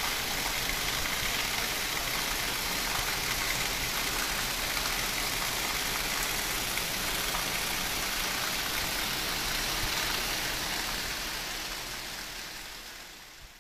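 Heavy rain pouring steadily, an even hiss that fades out near the end.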